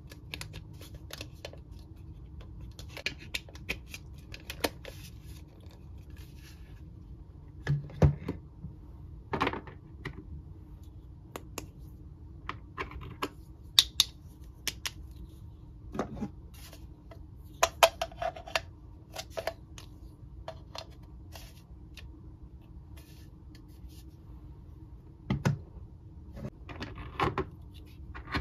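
Hard plastic Mr. Potato Head parts clicking and knocking as they are pulled out of and pushed into the plastic potato body and set down on a table: scattered light taps with a few louder knocks, over a faint steady hum.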